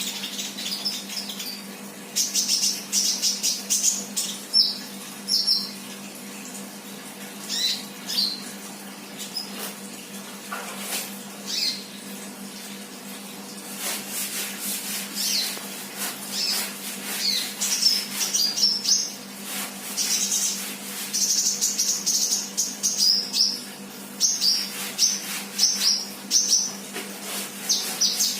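A caged sunbird ('kolibri') singing: high, rapid chirps and twittering runs that come in bouts with short pauses between them. A steady low hum runs underneath.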